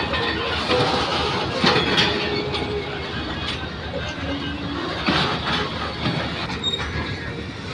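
Indian Railways goods train running on the track, its wagon wheels rumbling steadily with irregular clacks over the rail joints.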